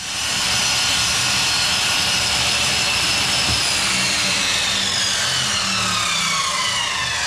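Table saw running and ripping a weathered hardwood fence paling along its length: a loud, steady whine with high tones that slowly slide down in pitch from about halfway through.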